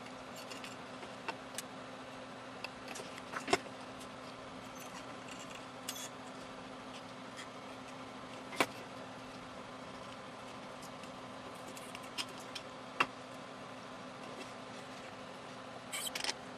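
Small screwdriver and screws working on a circuit board: scattered light metallic clicks and taps, a few sharper ones, with a quick cluster of clicks near the end, over a steady faint hum.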